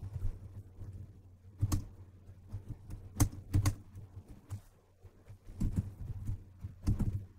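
Computer keyboard being typed on: irregular bursts of key clicks, over a low steady hum.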